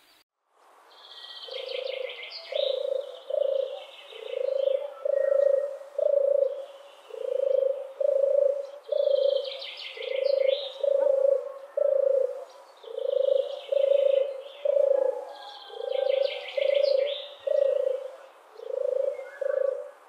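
Dove cooing: a steady series of low coos, about one a second in loose groups of three. A small songbird's higher chirping phrases come over it four times.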